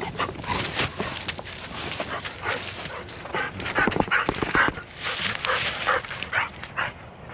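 Dogs playing together over a stick, barking and yipping in short, irregular sounds, with a few sharp clicks about four seconds in.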